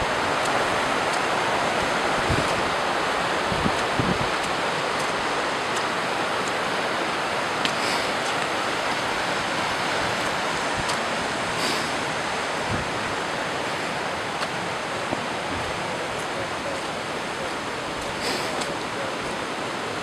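Fast mountain river rushing over rocks: a steady, even rush of water.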